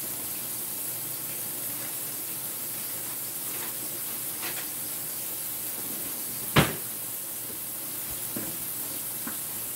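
Steady hiss, with a single sharp knock about six and a half seconds in.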